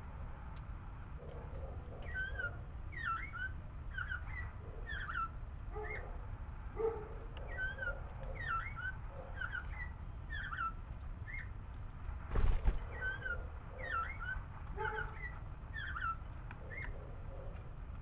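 Small birds chirping and calling over and over in short hooked notes, over a low steady rumble. A single sharp click comes just after the start, and a short burst of rustling noise about twelve and a half seconds in.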